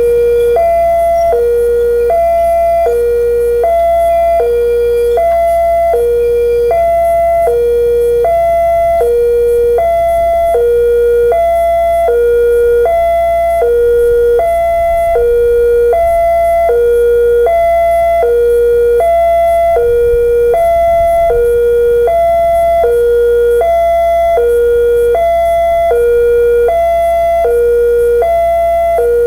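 Railway level-crossing warning alarm: an electronic two-tone signal sounding a low and a higher tone in turn, about one pair a second. It warns road users that a train is approaching while the barriers come down.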